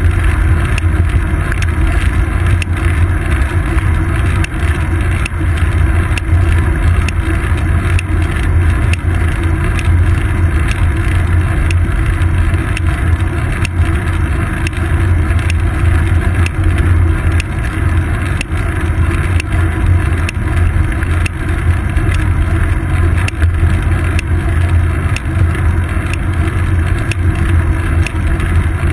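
Steady wind buffeting and tyre-on-pavement rumble picked up by a seat-post-mounted GoPro on a moving road bicycle. The rumble is deep and constant, with many small clicks and knocks from road vibration coming through the mount.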